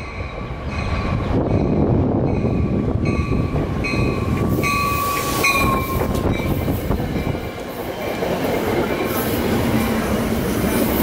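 Amtrak passenger train pulling into the station and rolling past close by, a steady rumble of wheels and cars on the rails. A high ringing note repeats about every 0.8 s through the first half, and a high squeal slides down in pitch about five seconds in.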